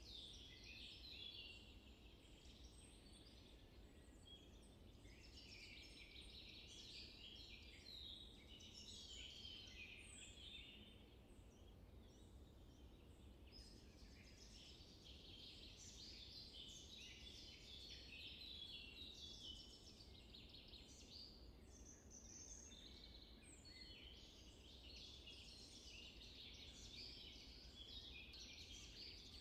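Faint chorus of many small birds chirping and twittering continuously, over a steady low rumble.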